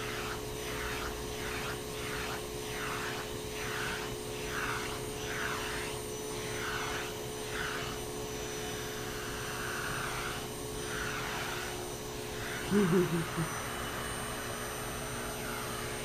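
Vacuum cleaner running steadily through a hose with a pet-grooming comb attachment. Its suction hiss swells and fades about twice a second as the tool is stroked through a Persian cat's long fur. A short, loud, wavering voice sound comes about 13 seconds in.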